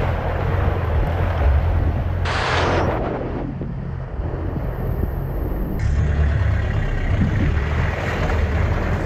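Four-wheel-drive's engine running at low speed as the vehicle drives through muddy water on a flooded track, with wind noise on the microphone. A brief louder hiss comes about two seconds in, and the sound shifts abruptly twice.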